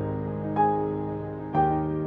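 Soft background music: slow, sustained melodic notes, a new one struck about once a second.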